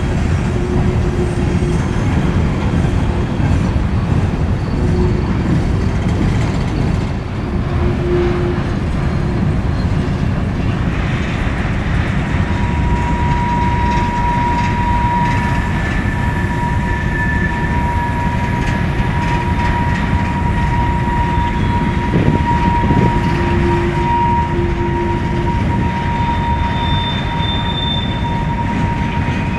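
CN freight train of hopper cars rolling past, a steady heavy rumble of wheels on rail. A little before halfway a high wheel squeal sets in and holds one steady pitch to the end, with shorter squeals at other pitches coming and going.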